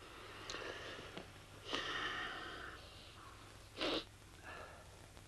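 Graphite pencil scratching on manuscript paper in a few short strokes, the loudest about four seconds in, over a low steady hum.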